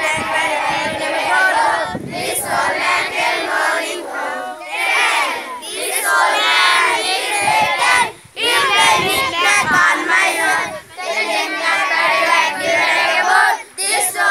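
A group of children's voices chanting loudly together in unison, in phrases a few seconds long with short pauses between them.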